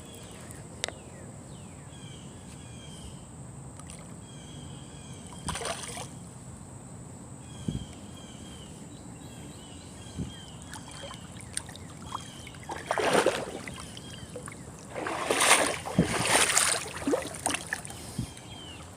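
Splashing and sloshing water as a hooked bass is brought in by hand in a shallow creek: a few short splashes, then a longer spell of splashing near the end.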